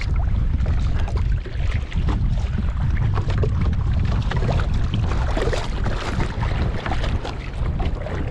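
Wind buffeting the microphone while a kayak is paddled, with scattered splashes and drips of water from the paddle strokes.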